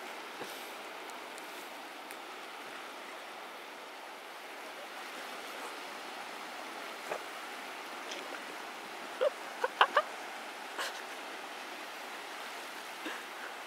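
Small sea waves washing over a rocky reef shallows: a steady, even hiss of water. A quick cluster of three or four short, sharp sounds stands out about nine to ten seconds in.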